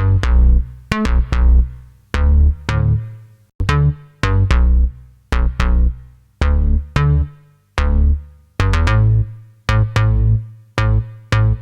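A recorded bass line playing back: a rhythmic run of short, punchy notes with a deep low end, each one starting sharply and dying away quickly.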